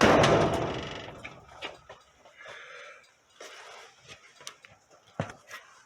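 A sudden loud clunk that rings and dies away over about a second and a half, followed by a few faint knocks and handling noises.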